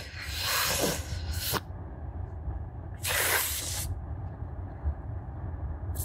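Close-mic mouth sounds of licking at a wound, coming as three breathy, hissing bursts with a steady low rumble beneath.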